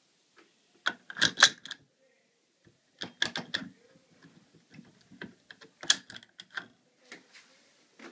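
Car seat belt buckle being worked by hand with its metal latch plate: three bursts of sharp plastic and metal clicks, about a second in, about three seconds in and near six seconds, with lighter rattles between them.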